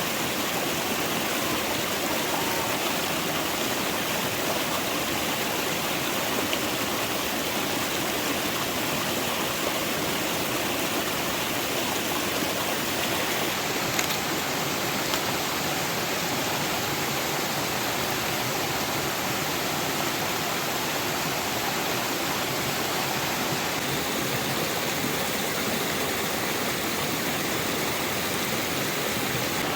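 Steady rushing water, an even unbroken hiss, with one short click about halfway through.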